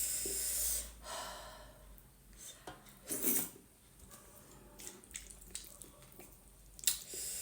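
Close-up eating sounds from someone eating hot maize dhindo with gundruk: airy breaths and slurps, then soft clicking mouth sounds of chewing.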